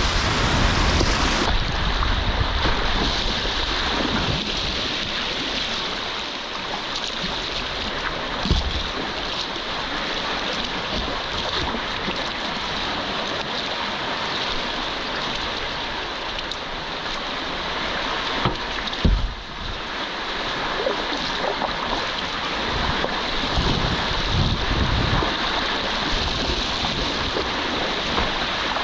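Fast, high river water rushing and churning around a whitewater kayak, heard from the boat, with wind buffeting the microphone. A few low thumps stand out, the loudest about two-thirds of the way through.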